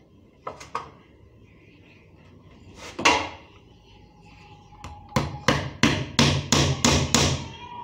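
Hammer striking a small piece of plywood: one hard blow about three seconds in, then a run of about seven quicker blows, roughly three a second.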